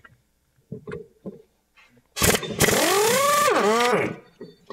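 Air impact wrench loosening a 5/8 in. brake caliper mounting bolt: a few light clicks as the socket is fitted, then a loud burst of about two seconds, the air motor's whine rising in pitch and then falling away, over a hiss of exhaust air.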